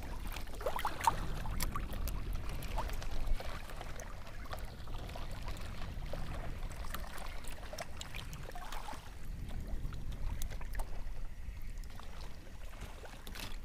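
Water lapping and trickling against a kayak hull on open sea, over a low steady rumble, with scattered small clicks and knocks.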